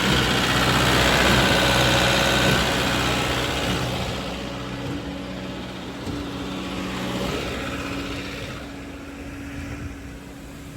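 Concrete pump truck's diesel engine running steadily while pumping a load, loud at first and gradually getting quieter.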